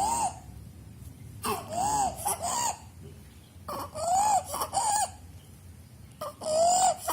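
Stridor from a narrowed larynx, caused by bilateral vocal-cord abductor palsy with laryngomalacia: a harsh, high-pitched crowing noise on each breath. Each noise carries a tone that rises and then falls, and the breaths come about every two seconds.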